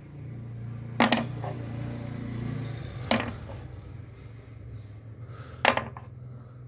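Small pieces of pine set down onto a chipboard workbench: three sharp knocks, about two seconds apart, over a steady low hum.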